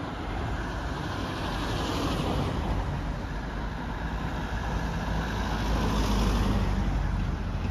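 Street traffic: cars driving past, their tyre and engine noise swelling twice as they go by.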